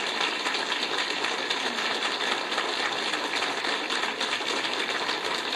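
Audience applauding, a steady, dense clatter of many hands clapping.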